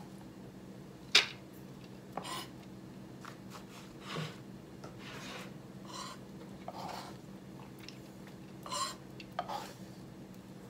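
Kitchen knife knocking and scraping on a plastic cutting board as carrot leaves are chopped and pushed into a glass bowl: scattered single taps, a sharp knock about a second in being the loudest, and a few short scrapes. A steady low hum runs underneath.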